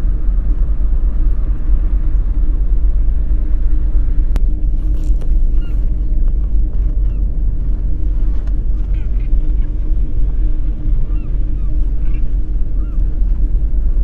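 A deep, steady rumbling drone with a constant hum in it, with short bird chirps over it from about five seconds in and a single sharp click just before.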